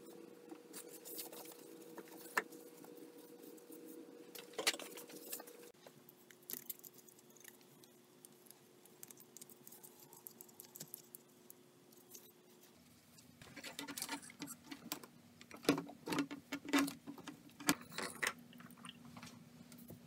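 Close handling noise: a rag rubbing on a granite countertop, then the plastic parts and coiled tubing of a garbage disposal air switch rustling and clicking as they are fitted. A cluster of sharp clicks and taps comes in the last third.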